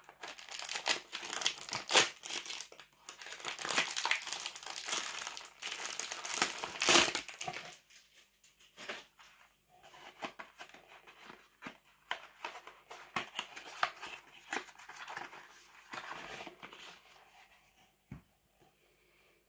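Crinkling and tearing of the wrapping on a cardboard skincare box as it is opened, loudest in the first eight seconds. Then quieter rustling and light clicks of the cardboard being handled as the glass serum bottle is taken out.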